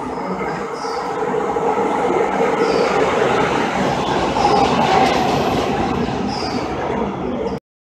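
Breda light-rail vehicle of San Francisco's Muni Metro running along the subway platform, a steady rumble of wheels on rail that grows louder and peaks about five seconds in, with several short high-pitched wheel squeals. The sound cuts off suddenly near the end.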